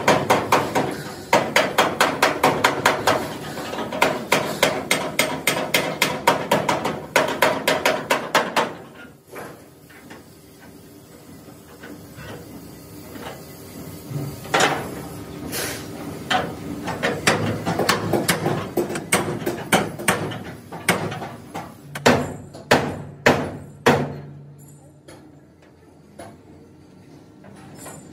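Hand hammer beating on the steel door frame of an excavator cab to straighten it. A rapid run of ringing metal blows for about nine seconds, then slower, spaced-out strikes.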